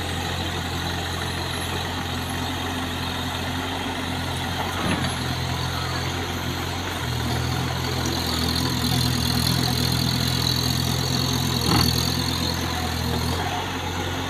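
JCB mini excavator's diesel engine running steadily as the machine walks down off a tipper truck, its note changing and growing louder about seven seconds in as it works the hydraulics. A sharp knock about five seconds in and another near the end.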